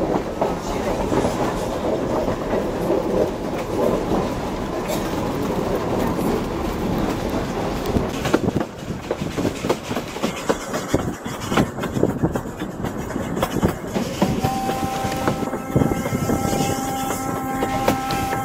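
Wooden coaches of a narrow-gauge steam train rolling, with clickety-clack and knocking of wheels over the rail joints. For the last four seconds a steady high tone sounds over it, several pitches held together.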